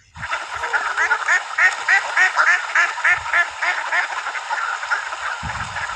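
Ducks quacking in a rapid run of short calls, about three to four a second. A low rumble comes in near the end.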